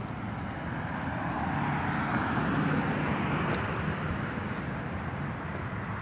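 A road vehicle passing by: the rush of tyres and road noise builds, peaks about halfway through, then eases off.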